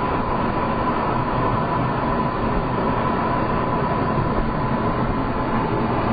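Steady rumble and road noise heard inside a moving car's cabin as it drives alongside a long freight train of coal hopper cars, with a faint steady whine that fades about halfway through.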